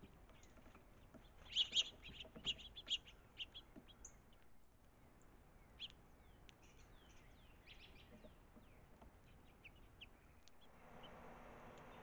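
Small songbirds chirping: many short, high chirps, a loud cluster of them about two seconds in, then scattered calls. A steady hiss comes up near the end.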